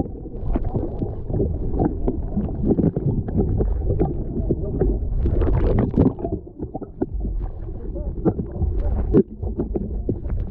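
Low rumbling wind and water noise around a small fishing boat, with scattered knocks and clatter on deck.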